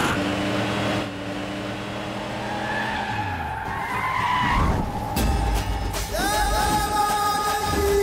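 Film sound effects of an SUV driving in: engine running, its note dropping about three seconds in, with a tyre skid around four seconds. Background music with percussion takes over in the second half.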